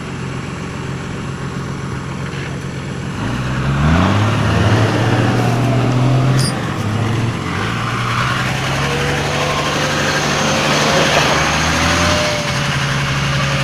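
Tow truck engines running under load while a crashed SUV is cable-pulled up out of a ditch; the engine note rises about three to four seconds in, eases back and picks up again. A thin whine joins in over the second half.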